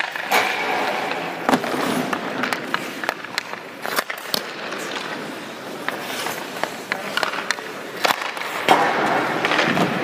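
Ice hockey skate blades scraping and carving across rink ice, with sharp clacks from a stick hitting pucks and pucks striking the goalie's pads and the boards.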